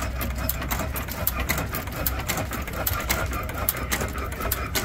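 Antique Nelson stationary gas engine running: a rapid, uneven clatter of sharp clicks over a low steady hum.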